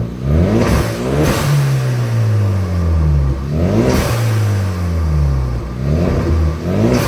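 Hyundai Veloster Turbo's turbocharged four-cylinder engine revved three times. Each time the engine pitch climbs, a short whoosh comes at the top from the newly fitted blow-off valve, and the revs fall slowly back.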